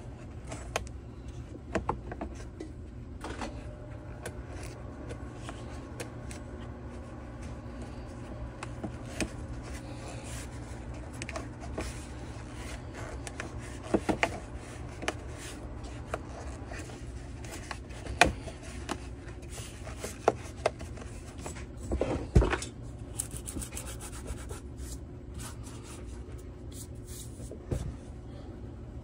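Hands rubbing and knocking on the plastic shroud and parts of a Stihl TS 700/800 cut-off saw, with scattered clacks that are loudest around the middle and later on, over a steady low hum.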